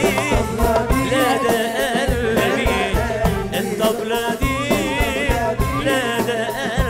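Egyptian-style Arabic pop song performed live: a singer's ornamented melody with a wide vibrato over a busy hand-percussion rhythm that includes jingling frame drums.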